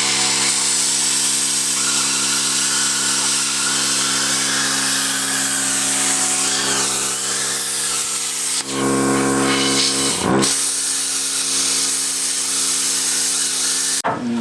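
Plasma cutter cutting through sheet-metal body panel: a loud, steady hiss of the arc and air with an electrical hum underneath. The cutting hiss stops for about two seconds around nine seconds in and again near the end, leaving the machine's hum.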